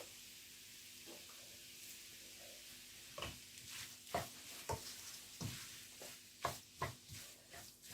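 Egg and vegetables sizzling faintly in a frying pan as spring onions are stirred in, with the cooking spoon knocking and scraping against the pan several times, mostly in the second half.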